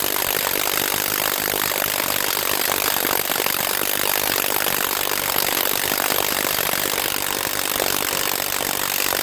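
HANS 1/2-inch cordless impact wrench hammering steadily on a car's lug nut without breaking it loose: the wrench lacks the torque for these lugs.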